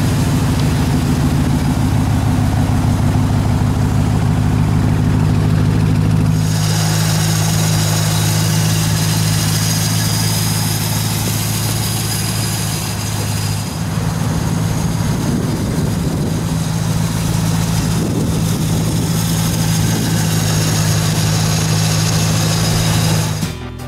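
Pontiac GTO's V8 idling steadily.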